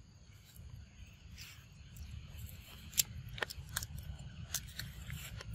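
A macaque biting into and chewing a green fruit: a series of sharp, crisp crunches, thickest in the second half.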